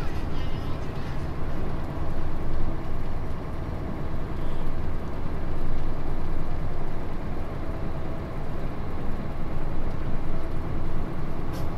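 A truck's engine and road noise: a steady low rumble.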